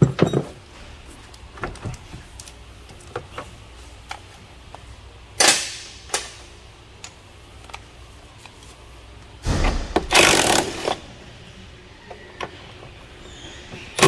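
Scattered clicks and knocks of tools and parts being handled in a car's engine bay. A louder, noisy clatter lasts about a second and a half, two-thirds of the way through.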